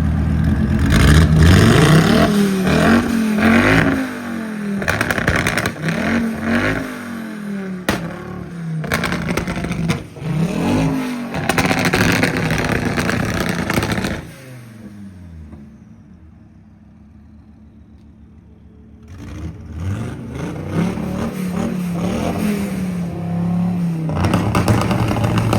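Audi Sport Quattro rally car's turbocharged five-cylinder engine revving hard again and again, its pitch sweeping up and down. About fourteen seconds in it drops to a quieter low running for several seconds, then the revs climb again.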